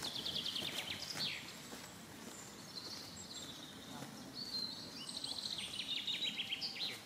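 Songbirds singing outdoors: rapid trills of high repeated notes, one right at the start and a longer run in the second half, some ending in a falling flourish. Soft footsteps on grass and leaf litter run underneath.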